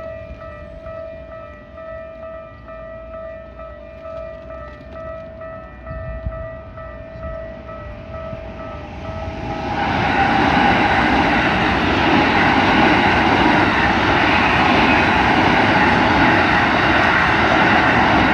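Japanese level-crossing warning bell ringing in an evenly repeating electronic ding. About nine and a half seconds in, a train starts running through the crossing, and its loud rumble and wheel noise drown out the bell.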